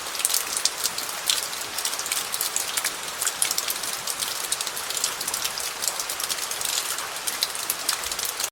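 Rain falling on gravel: a steady dense patter of many small, sharp drop impacts on stones.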